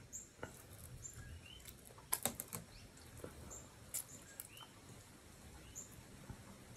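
Small birds chirping in the background: short high chirps repeating about once a second. A few sharp clicks and smacks come through as durian flesh is pulled from the husk and eaten, the loudest about two seconds in and again at four seconds.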